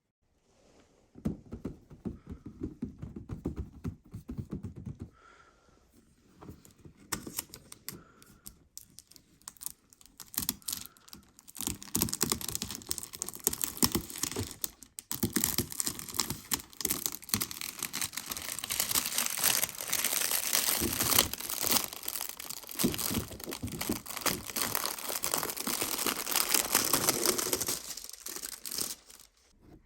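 Packaging of a remote-control car being handled and opened by hand: rustling, crinkling and tearing with many small clicks, on and off at first, then near-continuous and louder from about twelve seconds in.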